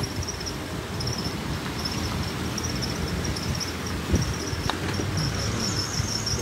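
Crickets chirping in a steady, high, pulsing trill over a low rumble.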